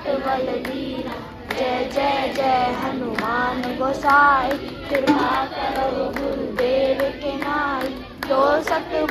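A group of people singing together, with hand claps keeping time.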